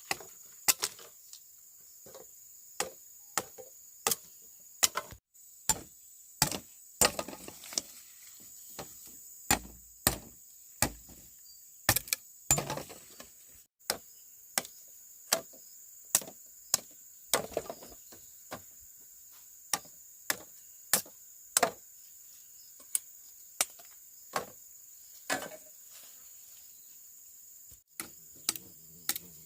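Repeated sharp chopping blows from a hand tool, irregular, about one a second. Behind them runs a steady high drone of crickets.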